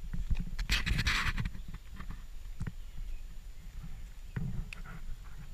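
Rustling and small clicks and knocks as a small geocache pouch is handled, with one loud rustle about a second in, over a low rumble.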